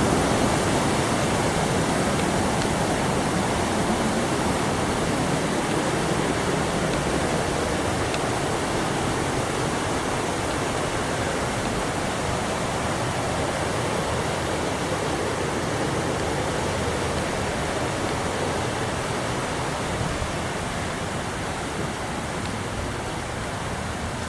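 Waterfall rushing steadily, gradually growing a little fainter.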